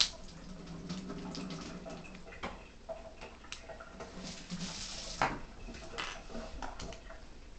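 Small metal and plastic Beyblade parts clicking and clattering as they are picked up off a table and fitted together by hand: scattered light clicks, with sharper ones at the start and about five seconds in.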